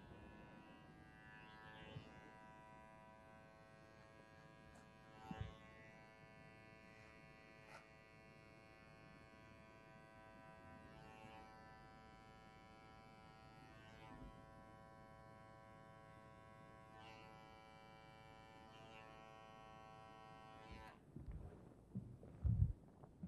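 Small electric hair trimmer running steadily with a constant hum as it cuts around the ear, with a few light clicks. It switches off about 21 seconds in, followed by a few thumps.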